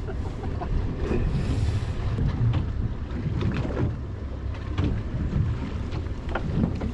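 Steady low rumble aboard a small fishing boat at sea: wind on the microphone and water against the hull, with scattered light clicks and knocks from fishing tackle being handled at the rail.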